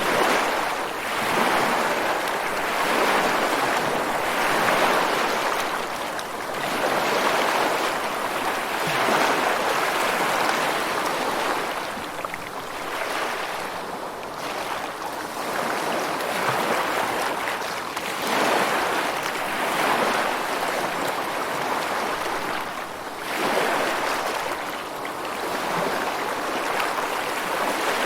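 Ocean waves washing in and drawing back, the surf swelling and fading every few seconds.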